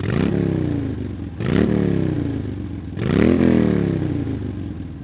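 An engine revved three times in quick succession, each rev a fast rise in pitch followed by a slow fall as it winds down.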